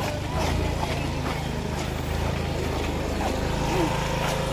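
Steady low rumble of a running vehicle engine, with scattered clicks and faint voices over it.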